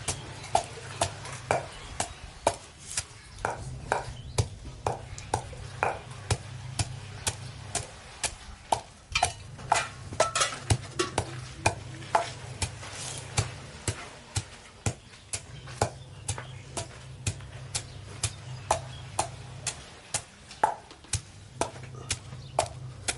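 A long wooden pestle pounding yellow paste in a mortar, with dull knocks about twice a second. A low steady hum sounds underneath at times.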